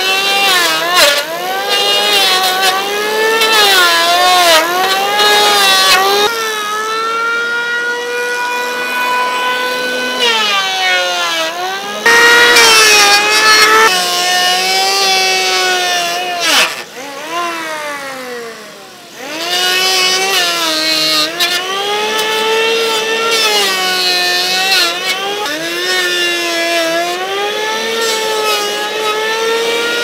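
Electric hand planer running and shaving a wooden board. Its motor whine sags in pitch as the blades bite and rises again between passes, with an especially loud cutting stretch a little before the middle. Past the middle the motor winds down briefly and then starts up again.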